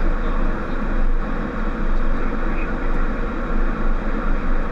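Steady cockpit noise of a Boeing 737: the low drone of engine and airflow, with no distinct events.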